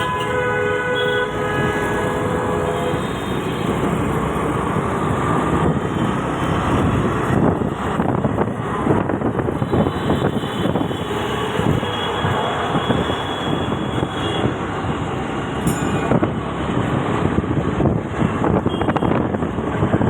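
A train horn sounding a steady held note that stops about three seconds in, then the rumble and rattle of a train running along the rails.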